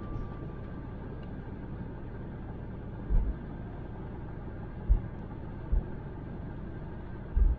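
Steady tyre and road noise of a car cruising on a concrete highway, broken by four short low thumps.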